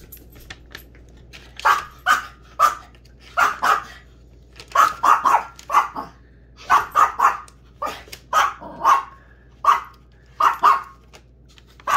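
Small dog barking excitedly in short, sharp, high yaps, singly and in quick runs of two or three, starting a second or two in. The dog is worked up over a treat it is waiting for.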